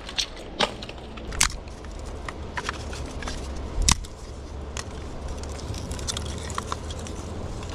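Dry wooden sticks clicking and snapping as kindling is laid over charcoal for a fire: a scattering of sharp cracks, the loudest about one and a half and four seconds in, over a steady low wind rumble.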